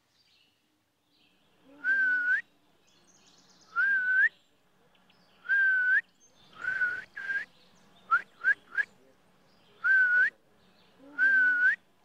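A man whistling a call to bring eastern bluebirds in to a feeder. It is a short level whistled note that bends up at the end, repeated every couple of seconds, with a quick run of three short rising whistles around the middle.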